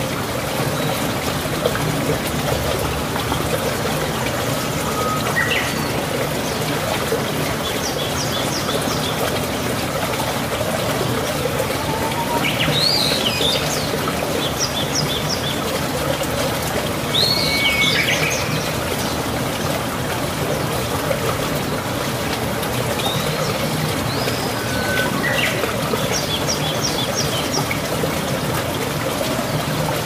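Steady rush of running water, with small birds chirping every few seconds: short high rising calls and quick runs of three or four high notes.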